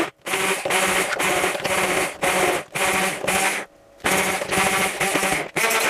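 Hand-held immersion blender running in short on-off bursts, its motor humming as the blades churn a thick sauce of fried bread, almonds, garlic and broth in a plastic measuring jug. It stops briefly about three and a half seconds in.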